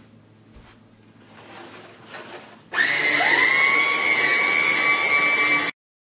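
Hart 20-volt cordless stick vacuum's brushless motor switching on about three seconds in: its high whine rises quickly in pitch as it spins up, then holds steady and loud over the rush of air, and cuts off suddenly near the end.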